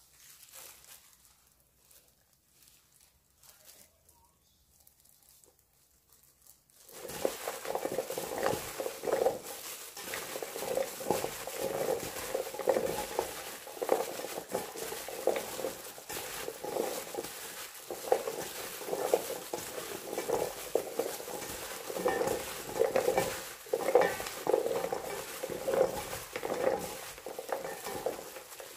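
Gloved hands tossing green chili peppers in flour in a stainless steel bowl: continuous rustling and scraping of plastic gloves and powder-coated peppers against the bowl, starting about seven seconds in.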